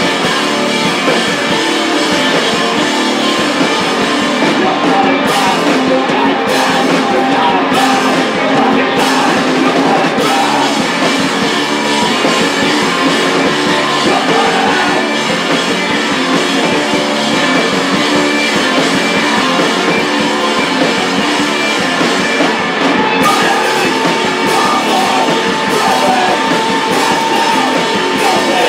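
Live post-punk band playing loud and dense: two electric guitars, electric bass and a drum kit, keeping up a steady wall of sound.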